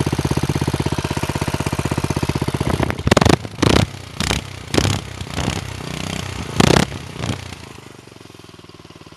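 Small OHV go-kart engine, warmed up and idling steadily. About three seconds in, a run of seven or eight loud knocks and scrapes comes over the engine for about four seconds, and near the end the engine sounds fainter.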